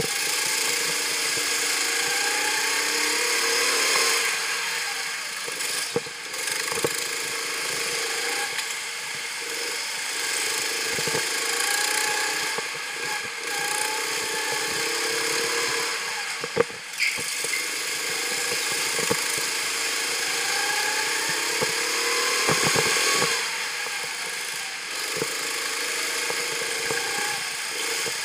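Go-kart engine heard onboard, revving up and easing off again and again through the lap, its pitch climbing on the straights and dropping for the corners. Scattered knocks come through, the sharpest about two-thirds of the way in.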